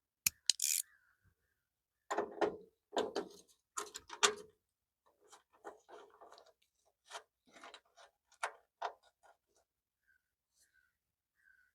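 Irregular metallic clicks and clanks of hand tools working on a truck's hood latch and catch spring, loudest in a cluster about two to four seconds in, then lighter taps.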